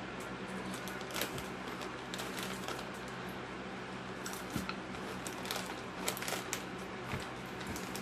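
Rustling and crinkling of Cheetos snack bags and crunching of the chips, heard as scattered short crackles over a steady low hum.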